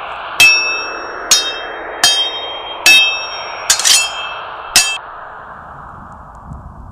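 Metal sword-clash sound effects: about seven sharp clangs, each with a short ringing tail, roughly one a second with two close together, over steady background noise. The clangs stop about five seconds in.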